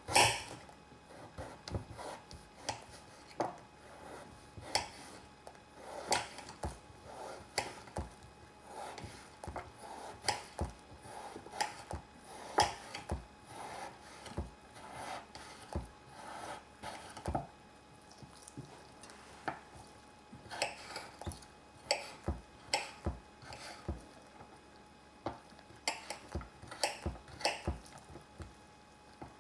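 Kitchen utensils knocking, clinking and scraping against pots and dishes while risotto is cooked, in irregular taps. The loudest knock comes right at the start.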